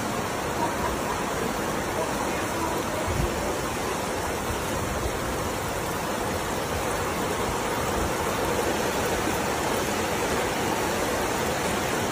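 Steady rush of heavy rain and fast-flowing floodwater, an even hiss with no single sound standing out.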